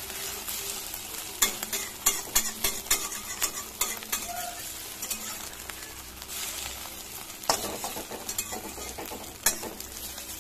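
Omelette frying in hot oil in a kadai, a steady sizzle, with a flat steel spatula scraping and tapping against the pan as the egg is broken into pieces and stirred. The taps come in quick clusters, thickest from about one and a half to four seconds in, with sharper knocks later on.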